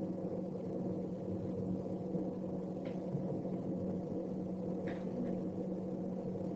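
Steady low electrical hum with faint background noise, and two faint clicks about two seconds apart.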